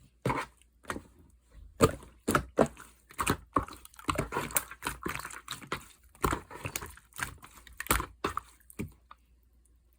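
Two-layer mixed slime being squished and poked by hand, giving irregular wet clicks and pops about two or three a second that stop about nine seconds in.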